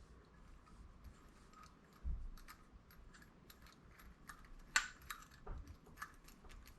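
Faint, scattered small clicks and ticks of hand tools on a carburettor as its needle assembly is undone. There is a soft thump about two seconds in and a few sharper clicks a little past the middle.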